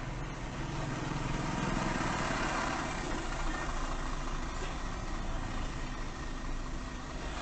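Car engine idling in stopped traffic, picked up by a dashcam microphone, with a steady low hum and road noise that swells a little around two to three seconds in.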